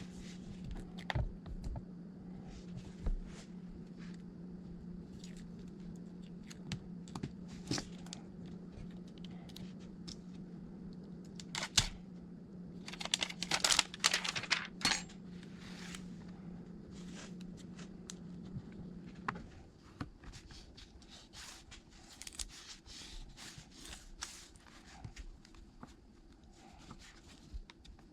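Scattered small clicks, taps and a brief run of scraping, tearing-like rustle from hands handling the iPad and tools, over a steady low electrical hum that stops about two-thirds of the way through.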